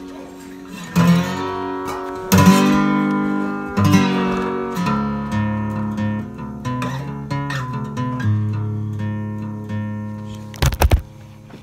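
Acoustic guitar music: a few strummed chords, then picked single notes. A couple of sharp knocks come near the end.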